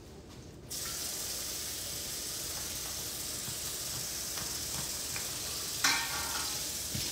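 A kitchen faucet is turned on about a second in and water runs steadily into the sink as a bowl is rinsed out. A single knock comes about six seconds in.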